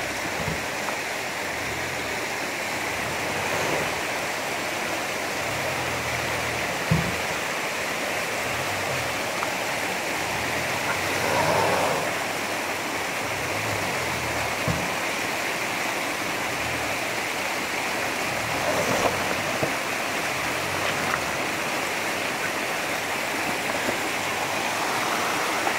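A stream rushing steadily, with a Mitsubishi Pajero's engine running underneath as the SUV crawls over rocks in the stream bed. A couple of sharp knocks, the loudest about seven seconds in.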